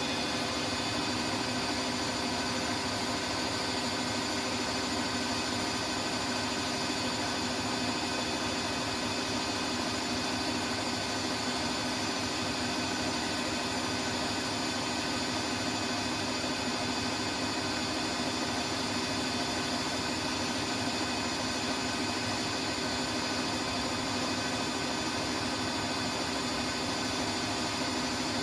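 Siemens Siwamat washing machine running steadily: an even whir with a few steady whining tones and no change in speed.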